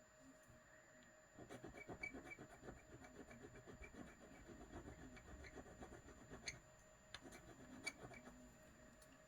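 Quiet, rapid scratching and rubbing of a metal necklace being scraped to make a mark for a silver acid test. It starts about a second and a half in and runs for several seconds.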